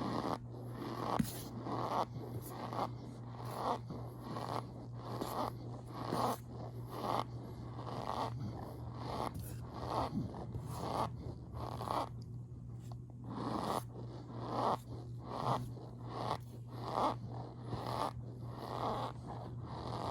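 Squeaky starch powder crunching and squeaking as it is compressed, in a steady rhythm of about one and a half strokes a second, with a short pause near the middle. A steady low hum runs underneath.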